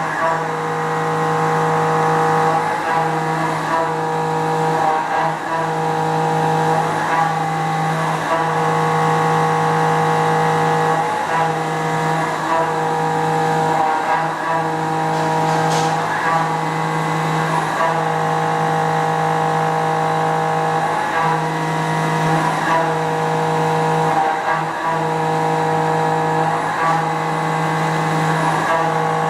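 Quaser MV 184 vertical machining center high-speed milling a mold plate: the spindle and cutter give a steady whine of several fixed tones. The whine dips briefly every one to two seconds as the cutting pass changes.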